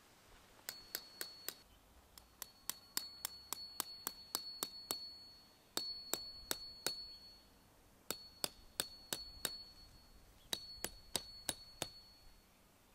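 Claw hammer striking a thin metal wire tent peg into lawn. The blows come in five short runs, about three a second, and each run has a high metallic ring.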